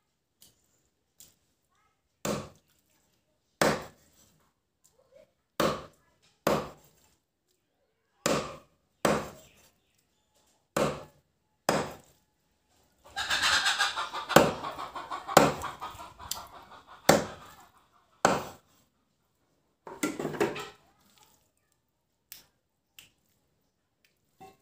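A large knife chopping pork belly on a thick wooden chopping block: single sharp chops about one to two seconds apart, with a longer, busier burst of louder noise in the middle.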